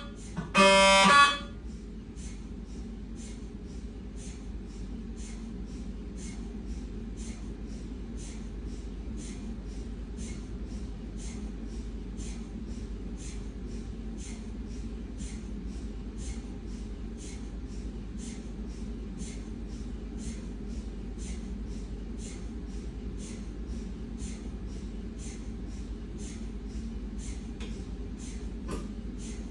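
Siemens MAGNETOM Lumina 3 T MRI scanner in a pause between scans: its loud pitched gradient tones stop about a second and a half in. What remains is a low steady hum with faint, regular soft ticks, about one and a half a second.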